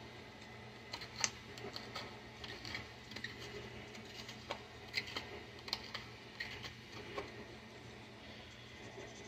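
Measuring spoon scraping and digging into hardened, caked baking powder in its tub: irregular small scratches and clicks, a wretched sound.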